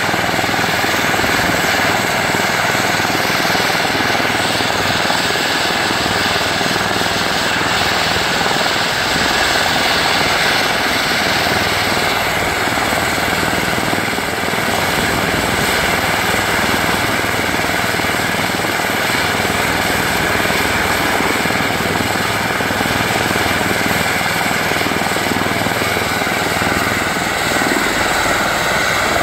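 Airbus EC145 T2 helicopter running steadily on the helipad, its twin turboshaft engines and rotors giving a loud, even noise.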